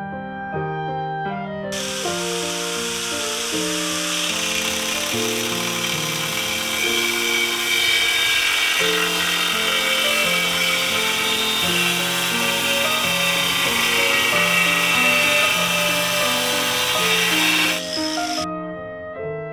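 Angle grinder with a diamond disc cutting porcelain stoneware tile: a loud, high-pitched grinding that starts about two seconds in and stops a little before the end, over background music.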